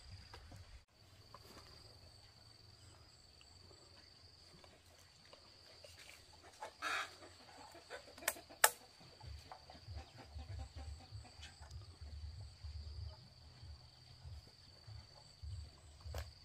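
Rural outdoor ambience: a steady high insect drone, with a chicken clucking briefly about seven seconds in. Two sharp clicks follow about a second later, the louder one standing out above everything else.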